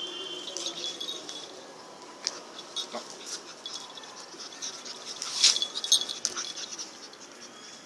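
Pug puppy moving about on a concrete floor: a light patter and clicking of its claws, with small metallic clinks from its collar, and two louder taps about five and a half seconds in.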